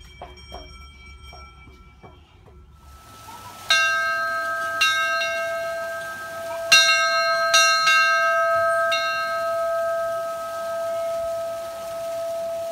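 Small footsteps clicking and ringing in a corrugated metal tunnel. After about three and a half seconds, a bronze bell hanging in a wooden belfry is struck by its clapper as a child pulls its rope. Several strikes come over the next four seconds, and the bell's tone rings on, slowly swelling and fading.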